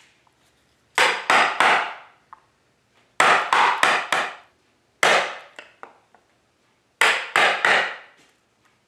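Hard hammer knocks struck in quick runs of three or four, about a third of a second apart, with pauses between runs. Each knock rings briefly. This is plausibly the mold being knocked apart to free a cured resin casting.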